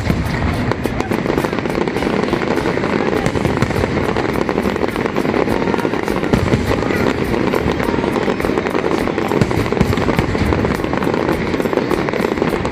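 Fireworks display: a dense, continuous barrage of bangs and crackling with no break.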